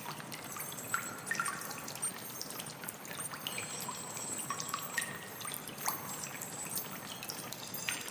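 Water trickling, with irregular small plinks of drops a couple of times a second over a steady splashy hiss.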